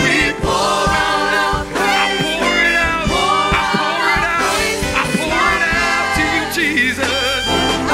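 Live gospel worship music: a group of singers with microphones singing a praise song over keyboard accompaniment, with regular percussive hits.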